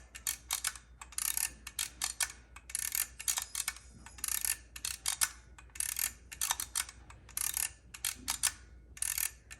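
Keys of an Adder adding machine being pressed one after another, its levers and toothed mechanism giving clusters of sharp metallic clicks about once a second.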